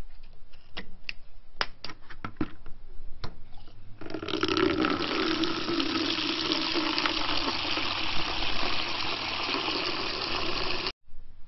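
A few sharp clicks and knocks as a quick-connect hose fitting is handled at a garden tap, then, about four seconds in, tap water gushes steadily into a plastic bucket for about seven seconds before cutting off suddenly.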